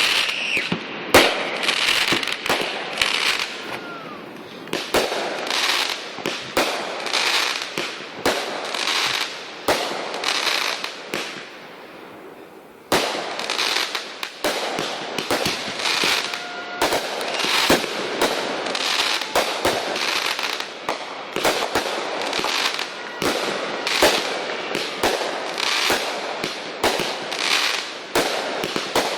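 Consumer fireworks going off in quick succession: sharp bangs and crackling bursts in a near-continuous string. A short lull a little before the halfway point ends with a sudden bang.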